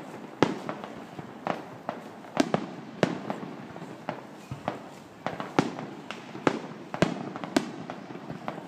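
Fireworks display: an irregular string of sharp bangs from bursting shells, roughly two a second, over a steady haze of smaller pops and crackle.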